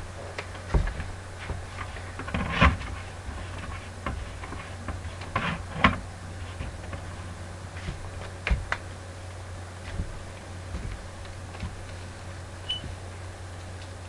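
Irregular knocks, clicks and short scrapes from a paint roller on an extension pole being worked against a rough stucco wall, over a steady low hum.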